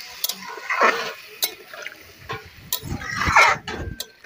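A metal spatula stirring a watery curry in a metal wok (karai), the liquid sloshing in two longer swells, with several sharp clinks of the spatula against the pan.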